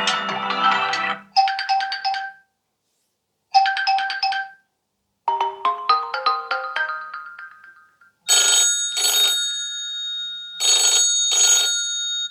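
Huawei P50 Pro ringtones playing one after another: a melody ends about a second in, then a short chime phrase is played twice, then a run of notes climbs and dies away. From about eight seconds in comes a telephone-bell-like ring in pairs, two pairs.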